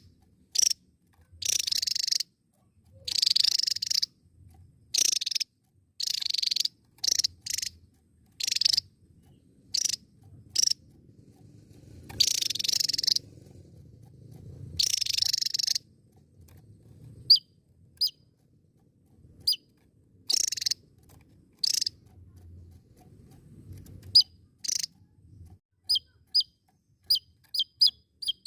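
Javan tesia singing: a series of loud, harsh, high-pitched notes in short bursts, some up to about a second long. From about halfway on they give way to quick, thin, down-slurred chips.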